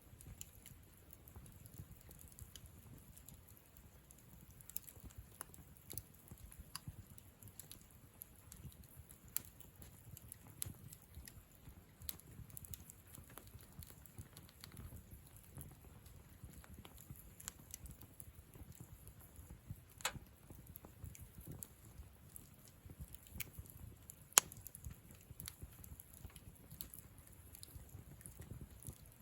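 Wood campfire crackling softly with scattered sharp pops and snaps, two louder pops about 20 and 24 seconds in, over a faint low rumble.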